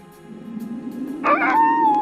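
A dog whining: a high, drawn-out call that starts suddenly about a second in, slides down and is held, over a low steady rumble.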